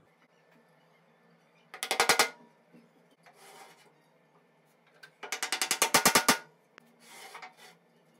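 Two rapid runs of sharp knocks on wood, the first about two seconds in and the second, longer and louder, just past the midpoint: wooden chair parts being tapped together as the glued joints are assembled. Each run is followed by a fainter scrape or rustle.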